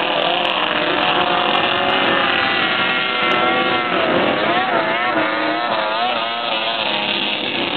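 Snowmobile skimming across open water at speed, its two-stroke engine running at high revs, with the pitch wobbling up and down about halfway through.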